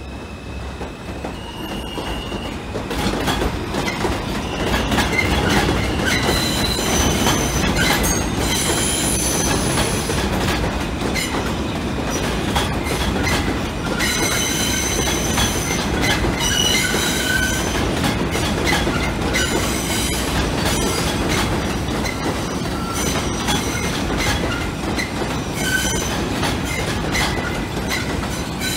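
An R160 subway train rolling past on curved elevated track through switches, its wheels squealing in many short high-pitched tones over a steady rumble, with clattering over the rail joints. The sound builds over the first few seconds and then stays loud.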